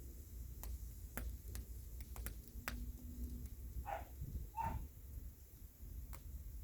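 Bonfire crackling: scattered sharp pops and snaps over a steady low rumble. Two short pitched cries cut in at about four and four and a half seconds.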